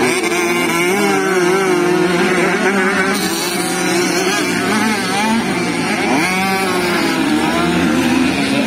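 Motocross bikes racing on a dirt track, several engines running at once, with the loudest engine note rising and falling again and again as the riders open and close the throttle.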